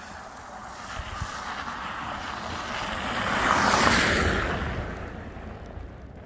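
A car driving past on a snow-covered road, its tyres hissing through the snow. The sound builds as it approaches, is loudest about four seconds in as it passes, then fades away.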